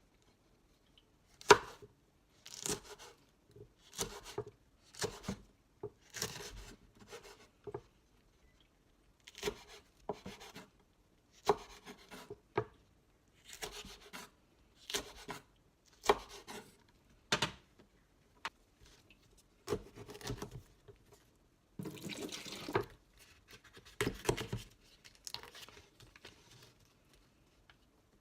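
A series of irregular small knocks, clicks and rustles from hands handling objects, roughly one every second or two.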